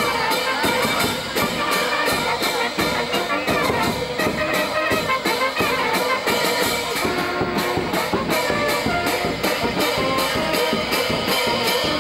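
Brass band music with a steady, quick drumbeat.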